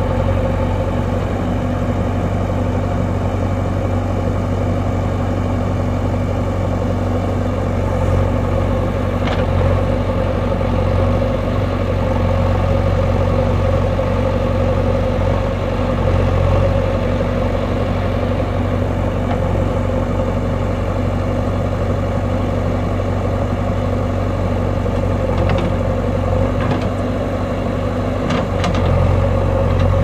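JCB 3DX backhoe loader's four-cylinder diesel engine running steadily under load as the machine works through mud, its note swelling slightly a few times.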